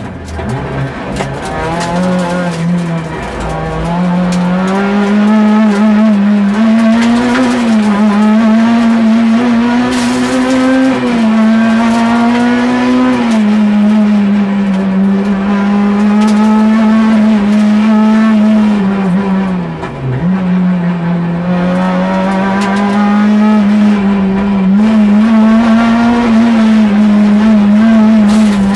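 Peugeot 106 Kit Car's four-cylinder rally engine heard from inside the cabin, held at high revs under load with small rises and falls as the throttle is worked. The revs drop sharply twice, just after the start and about two-thirds of the way through, then climb back.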